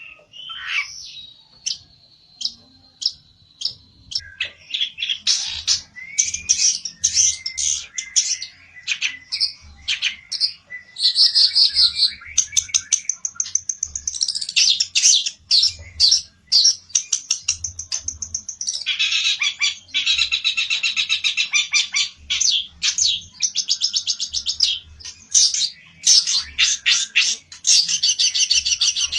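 Pelentet songbird singing hard in a fighting mood: a held high whistle, then long runs of fast, scratchy high trills and chatter with hardly a pause.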